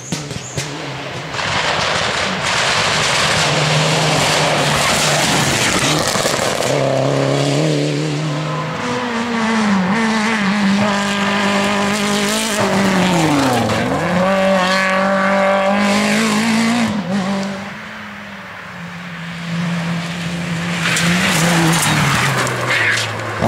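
Rally cars passing one after another at full throttle, among them a Mitsubishi Lancer Evolution and a Peugeot 106: engines revving hard through gear changes. About two-thirds of the way through, one engine's note drops sharply and climbs straight back up.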